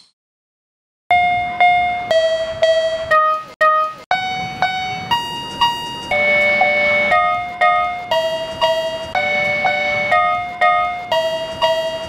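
Railroad crossing warning bells ringing, several at different pitches striking together about twice a second. They start about a second in after a silence.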